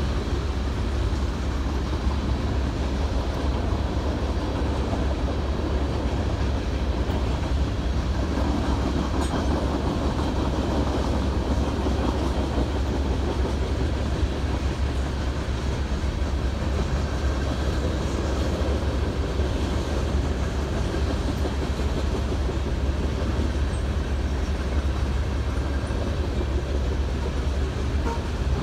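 Mixed freight cars of a train rolling past at a steady speed: a continuous rumble of steel wheels on the rails that holds even throughout.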